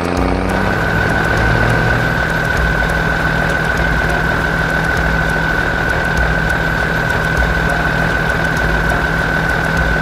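Sound effect of a heavy construction vehicle's diesel engine running steadily, with a steady high whine that comes in about half a second in.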